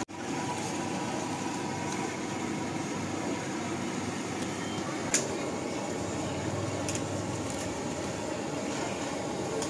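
Large steel pot of water at a rolling boil with dumplings cooking in it: a steady rushing bubbling. There is a single sharp clink about five seconds in.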